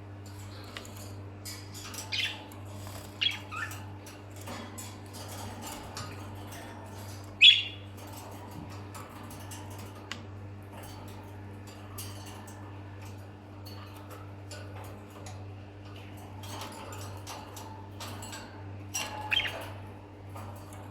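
Pet lovebirds giving short, sharp, squawky chirps now and then, the loudest about seven seconds in, with scattered small clicks and a steady low hum underneath.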